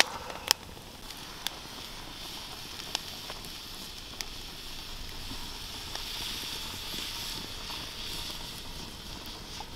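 Campfire crackling, with a few sharp pops in the first seconds. From about five seconds in, a steady hiss grows as diced carrots and onions begin to sizzle in a steel pot over the coals.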